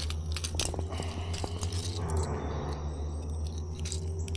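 Light metallic clicking and rattling of a Choppo topwater lure's treble hooks as a small bass, hooked with every hook, is worked free. A steady low hum runs underneath.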